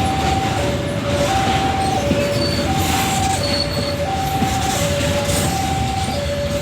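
Babaranjang long coal train rolling past, its wagons giving a steady running noise. Over it, a two-tone alarm switches between a high and a low note about every two-thirds of a second.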